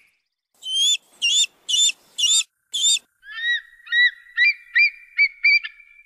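Crested serpent eagle calling: five loud, ringing whistled notes about half a second apart, then a quicker run of shorter, lower notes that speeds up toward the end.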